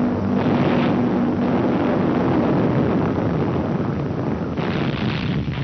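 Battle noise on an old wartime newsreel soundtrack: a steady engine drone, like an aircraft overhead, fading after a couple of seconds over a continuous rumble of gunfire, with a louder burst near the end.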